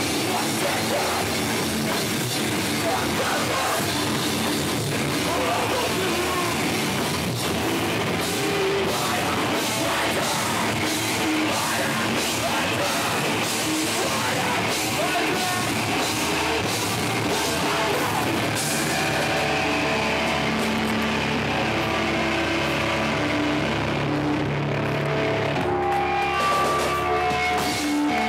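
Hardcore/metalcore band playing loud live: distorted guitars, bass and drums with crashing cymbals. About two-thirds of the way through, the drums and cymbals drop out, leaving sustained guitar notes ringing.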